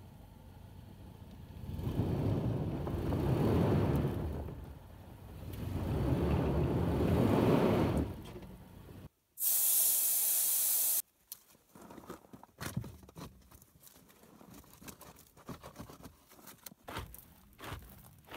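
A stuck Toyota 4Runner's engine revving twice with its wheels spinning on loose gravel. Then a loud, steady hiss of air let out of a tyre for about two seconds, followed by scattered scraping and clicking as gravel is dug out and boards are wedged under the tyre.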